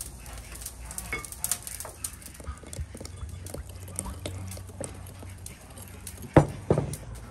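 Wire whisk beating an egg mixture in a glass bowl: quick clinks and scrapes of the metal tines against the glass, with two louder knocks near the end.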